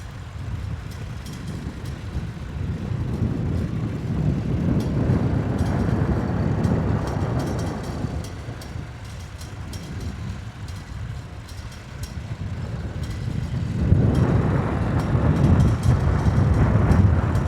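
Tractor engine running, swelling louder, easing off, then growing louder again near the end.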